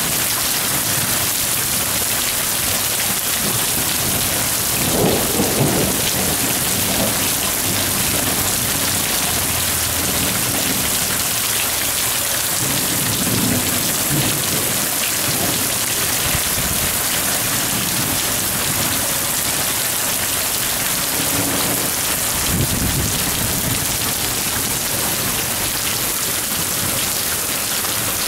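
Heavy rain falling steadily, a loud, even hiss of drops on surfaces, broken by three brief low rumbles.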